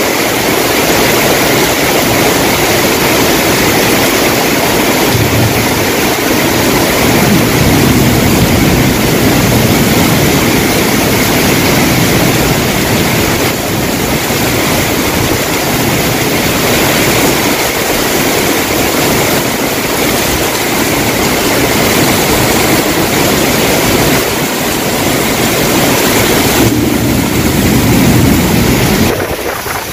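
Heavy rain pouring down in strong gusting wind, a loud steady rush, with the wind buffeting the microphone.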